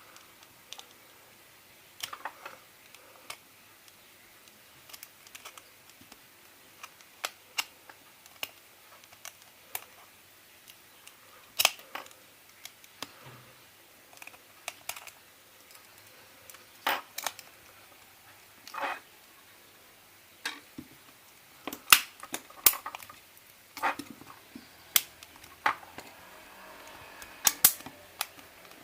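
Irregular small clicks and taps of a first-generation iPod Nano's casing and parts being handled and fitted back together, some sharper than others, a few close together near the end.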